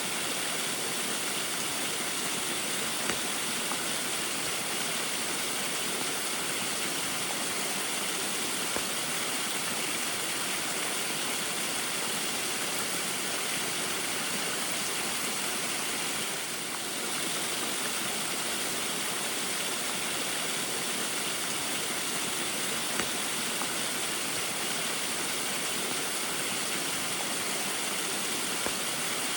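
Small waterfall splashing steadily in the rain, an even rush of falling water. It is briefly a little softer about seventeen seconds in.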